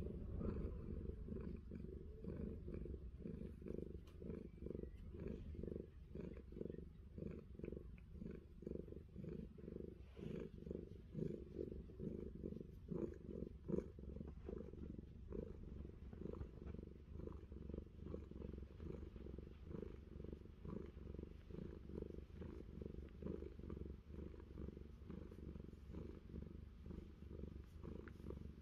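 Domestic calico cat purring steadily as its head and ear are scratched, a low rumble pulsing about twice a second with its breathing: a sign of contentment.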